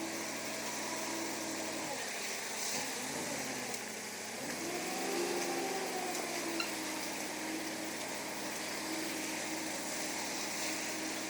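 Construction machinery engine running, its speed dropping about two seconds in and climbing again around five seconds, then holding steady, over a constant hiss.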